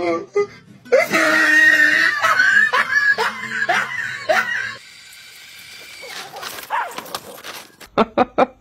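A high-pitched voice screaming in a run of short, rising cries for about four seconds, then dropping away to something quieter.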